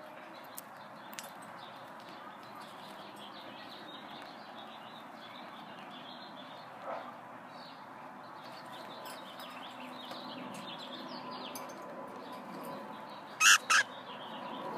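Caged cockatiels chattering softly with many small chirps and tweets. Near the end come two loud, short, sharp sounds in quick succession.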